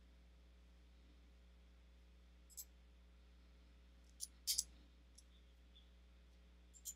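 Faint, sparse clicks of a computer mouse and keyboard over a low steady hum, with a louder close pair of clicks about halfway through.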